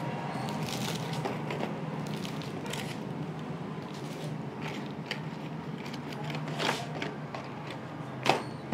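Plastic packaging and a cardboard box being handled: crinkling and rustling with scattered sharp crackles, over steady room noise.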